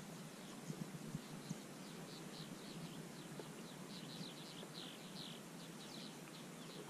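Birds chirping in quick runs of short, falling, high notes. A few light knocks sound about a second in.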